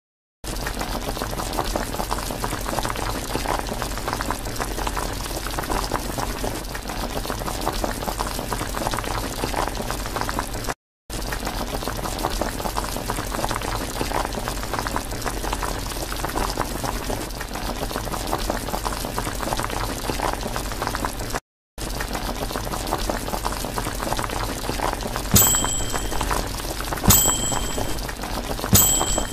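Cartoon sound effect of cola being sucked up through a straw: a steady bubbling gurgle that cuts out briefly twice. Near the end a desk service bell dings three times, marking the end of the countdown.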